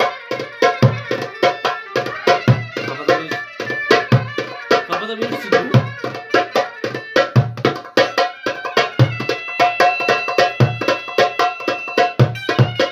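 Darbuka played in a fast çiftetelli rhythm: deep dum strokes about every second and a half among rapid sharp rim strokes, over a melody held on another instrument.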